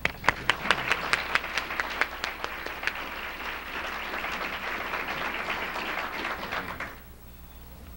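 Audience applauding: the clapping starts at once and dies away about seven seconds in.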